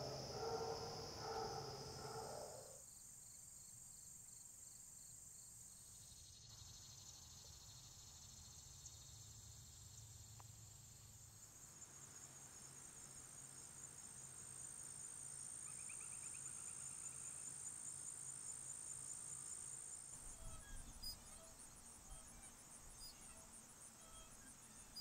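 Faint chorus of crickets and other insects, trilling steadily at a high pitch. The chorus changes abruptly several times, and a louder, unclear mid-pitched sound fills the first couple of seconds.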